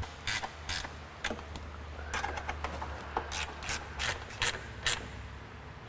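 Hand ratchet clicking in short, irregular runs while bolts are run down by hand.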